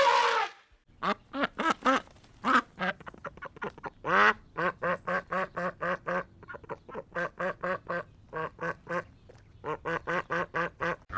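Duck quacking in a fast, steady run of short calls, about three or four a second, with a brief pause near the end. A short noisy sound comes at the very start.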